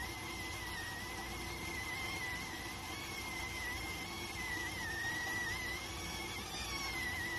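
Electric rice cooker's steam whistle sounding continuously: a high, thin whistle that wavers slightly in pitch over a steady hiss of escaping steam.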